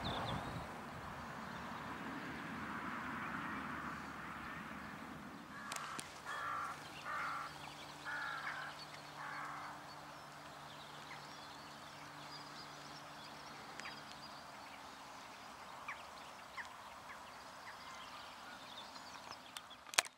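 A crow cawing four times in an even series, starting about six seconds in, over a faint steady engine hum. The first few seconds hold a steady rushing noise.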